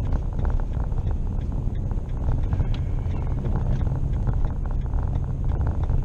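Steady low rumble of a vehicle's engine and tyres on a snow-covered road, heard from inside the cab, with scattered light clicks and rattles.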